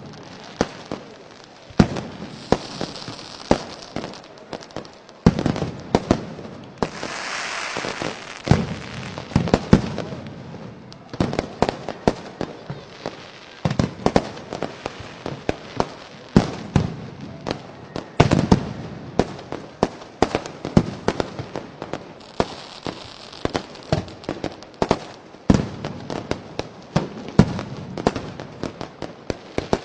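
Fireworks going off in quick succession: a dense, irregular string of sharp bangs and pops, with a few short stretches of hiss.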